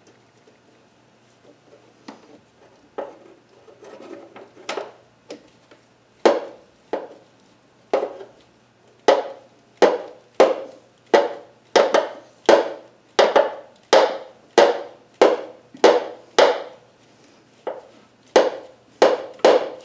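Hand tool working a stubborn bolt on the engine: a run of sharp knocks, each with a short ring, sparse and faint at first, then loud and regular at about one and a half a second from about six seconds in.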